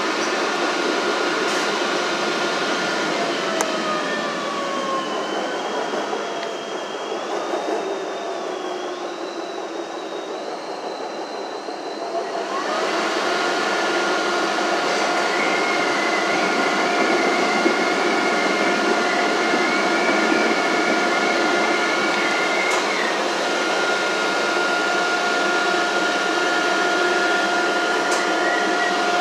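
Running noise of a CTA 3200-series rail car heard from inside, with wheels on the rails and steady electrical whines from the traction equipment. In the first third a few tones glide downward and the noise eases off for a few seconds; just before halfway it comes back suddenly louder, and the whines hold steady to the end.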